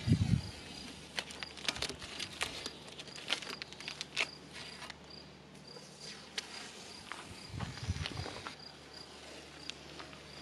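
Blue painter's tape crackling and ticking in short runs as it is peeled off the freshly painted rim of a cast iron sink. A faint, high insect chirp repeats evenly behind it, and there are low thumps near the start and about eight seconds in.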